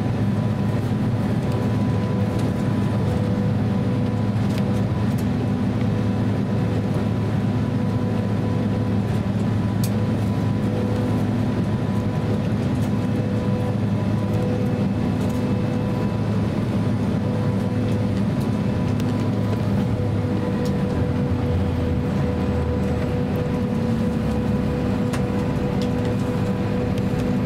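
Cabin noise inside a Boeing 767-300 taxiing after landing: a steady low rumble from the engines at taxi power, with a steady hum. The rumble shifts in tone about twenty seconds in.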